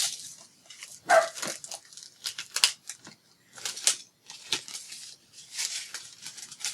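Clicks, taps and rustles of craft handling: a metal cutting die and cut paper pieces being handled and set down on the work table.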